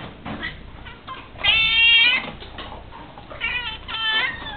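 Domestic cat whining with drawn-out meows: a long loud one about a second and a half in, then two shorter ones near the end.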